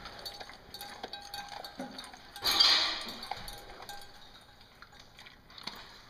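Dog eating from a stainless steel bowl, with light metallic clinks against the bowl and a faint ringing. One louder, rough burst of noise comes about two and a half seconds in.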